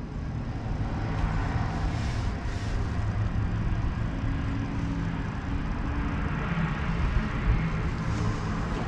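Race car's engine idling steadily, heard from inside the stripped cabin of the stationary car. Other cars pass faintly on the track, about two seconds in and again near the end.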